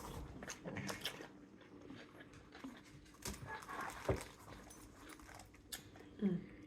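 A pet dog whimpering briefly, with scattered faint clicks and rustles.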